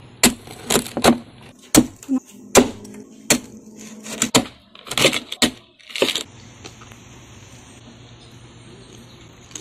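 Meat cleaver chopping through crispy deep-fried pork belly (lechon kawali) on a wooden cutting board: about a dozen sharp chops over the first six seconds, then they stop, leaving a faint steady background hum.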